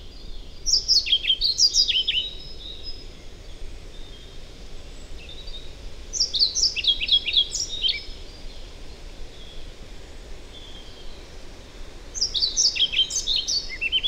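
European pied flycatcher singing: three short, rhythmic strophes of clear notes jumping between high and low pitches, each about two seconds long, the last one still going at the end. A faint steady low rumble of background noise lies underneath.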